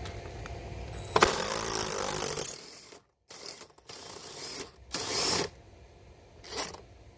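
Cordless impact driver with a socket extension backing out the bolt of a cartridge filter tank's band clamp. It runs in bursts: a long run about a second in, then shorter bursts.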